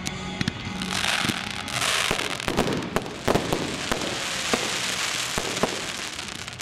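Fireworks going off. A rushing hiss comes about a second in, then a string of sharp bangs and crackles as the shells burst.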